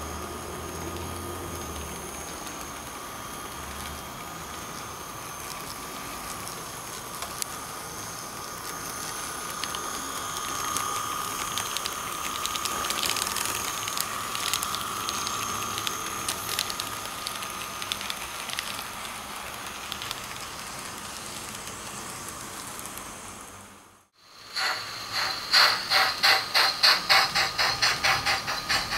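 Model railway running sound: a steady high whine and hiss with light ticking. After a brief cut about 24 s in, a model steam locomotive's sound unit chuffs at about three chuffs a second.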